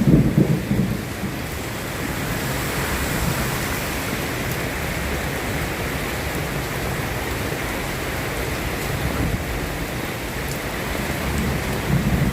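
Steady rain falling, with low rolls of thunder rumbling in the first second and again near the end.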